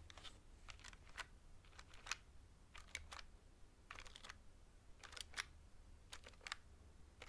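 Keys of a mechanical keyboard pressed softly in short, irregular runs of two or three clicks, roughly once a second.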